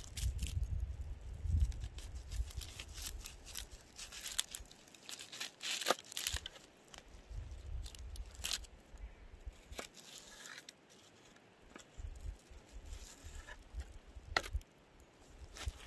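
A knife slicing through a raw onion held in the hand, giving irregular crisp crunches as each slice is cut. A low rumble comes and goes underneath.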